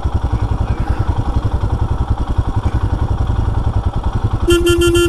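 Royal Enfield Himalayan's single-cylinder engine running at a steady low speed on a rough dirt trail, an even rapid pulse. Near the end a short horn beep of steady pitch sounds over it.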